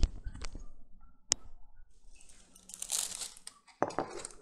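Handling of a clip-on lapel microphone, giving a few sharp clicks and rubbing, then about two and a half seconds in a stretch of plastic bag crinkling, followed by a couple of light knocks near the end.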